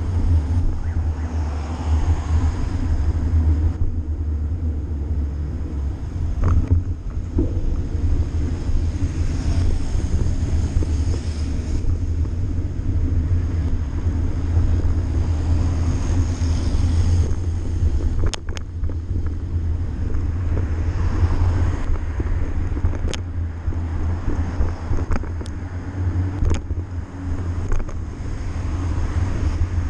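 Wind buffeting the microphone of a bicycle-mounted camera while riding, a steady low rumble, with a few sharp clicks in the second half.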